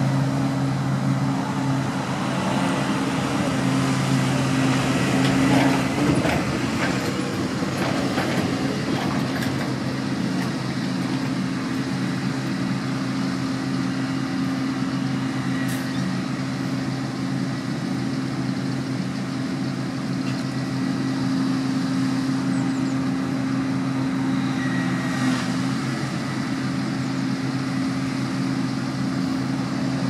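New Holland self-propelled forage harvester chopping maize, its big engine running steadily under load, with a tractor and trailer running alongside.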